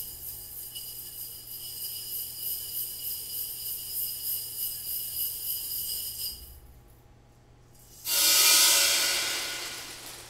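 Dark seeds rattling and swirling inside a small round glass flask: a steady high shimmer with faint ringing glass tones and a slight pulse, lasting about six seconds. About eight seconds in, a sudden, louder rush of noise starts and fades away over about two seconds.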